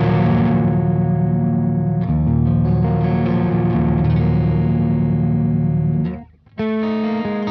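Electric guitar played through a Quad Cortex neural capture of a Fender Concert 6G12 brownface amp: sustained chords ringing out, a new chord struck about two seconds in, then a brief gap near the end before the next chord comes in.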